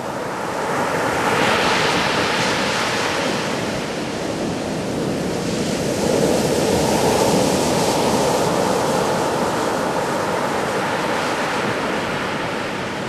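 Atlantic Ocean surf: waves breaking and washing up the beach in a continuous rush, swelling about a second in and again midway. Wind buffets the microphone throughout.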